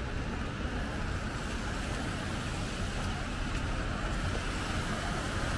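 City street traffic on rain-wet pavement: a steady hiss of tyres and rain over a low rumble of passing vehicles.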